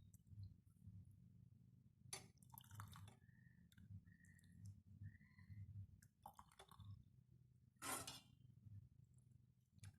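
Faint clinks and knocks of a pan and a small strainer against a drinking glass as a hot herbal decoction is strained. The loudest is a short knock about eight seconds in.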